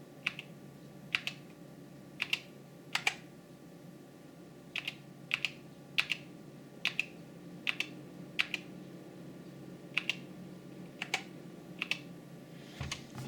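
Keystrokes on an SK61 60% mechanical keyboard with Gateron Optical Brown switches, pressed singly at a slow, irregular pace of roughly one or two a second, some landing in quick pairs.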